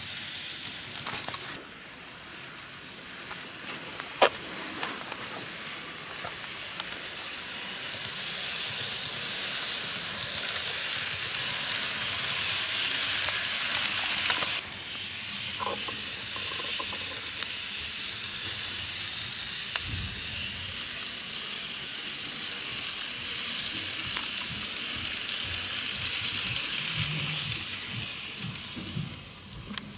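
N-gauge model train running along sectional track: a steady hiss of its small motor and wheels that swells, drops off abruptly about halfway through, swells again and fades near the end. A sharp click about four seconds in.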